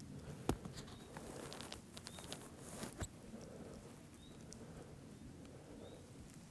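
Faint rustling in dry grass, with two sharp clicks (the first, about half a second in, is the loudest) and a few faint short rising chirps.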